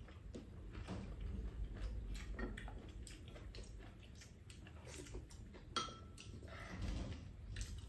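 Spoons tapping and scraping against a frying pan and small ceramic bowls as food is scooped up and eaten, heard as a series of light clicks. A sharper clink with a short ring comes about six seconds in.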